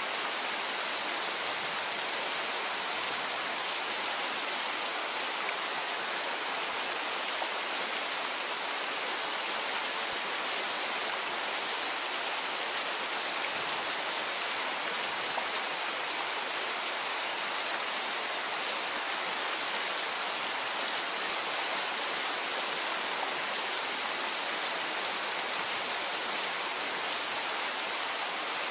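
Steady rain falling: an even, unbroken hiss with no thunder.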